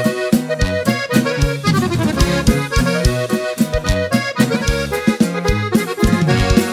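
Instrumental break of a norteño corrido: accordion playing the lead melody over a steady bass-and-drum beat.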